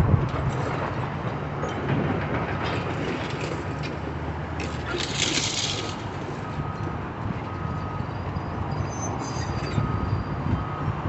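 Steady low rumble of heavy machinery, with a loud burst of hissing about five seconds in and faint short beeps repeating in the second half.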